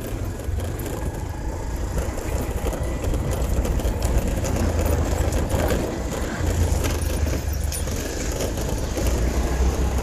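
Wind rumbling on the microphone, an uneven low buffeting over a faint outdoor background hiss.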